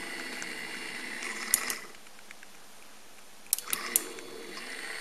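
Sliding gate's electric gear motor running on the test bench under a homemade H-bridge controller, with a steady hum and whine. It stops about two seconds in, a few sharp clicks come at about three and a half seconds, and it starts running again.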